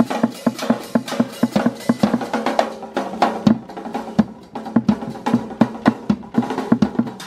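Background music driven by a busy drum kit, with snare and bass drum strokes several times a second over a steady backing.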